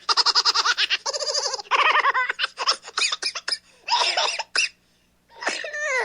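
High-pitched cartoon baby voice giggling in rapid pulses that slow and break up into short separate bursts, with a falling vocal sound near the end.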